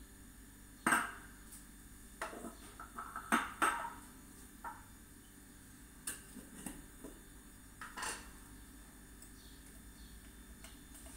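A metal teaspoon clinking and tapping against glass spice jars and the rim of a stainless steel cooking pot: scattered clinks, the loudest about a second in, a quick run of taps a couple of seconds later, and a few more toward the end.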